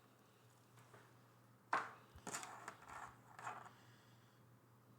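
Handling noise from small accessories being picked up and moved around: a sharp tap about two seconds in, then a second or so of rustling and scraping.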